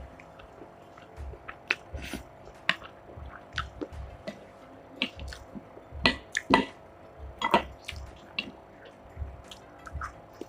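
Close-up eating sounds: a person chewing and slurping spicy instant noodles, with irregular wet smacks and clicks, busiest about six to seven and a half seconds in.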